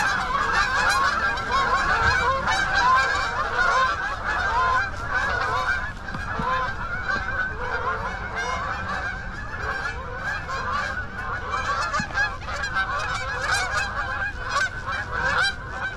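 A huge flock of geese honking continuously, many calls overlapping into a steady din.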